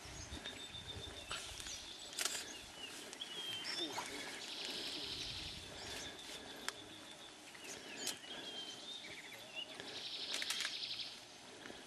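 Forest ambience with birds chirping and two spells of a high buzzing trill, one about four seconds in and one near the end. Scattered snaps and rustles come from the leafy vegetation as mountain gorillas move and feed in it.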